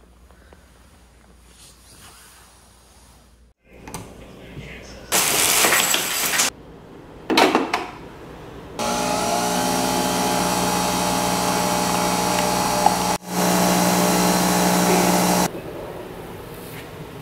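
Nespresso Vertuo capsule coffee machine brewing: a loud, steady hum with a constant whine for several seconds, broken once by an edit. Before it come two short noisy bursts, and the first few seconds hold only quiet room tone.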